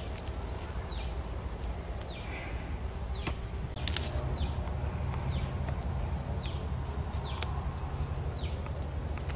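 A bird calling over and over, a short falling note about once a second, over a steady low rumble, with a few sharp clicks.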